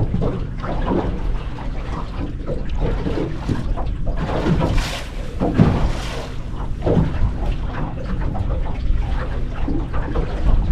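Water splashing and trickling, over a steady low rumble.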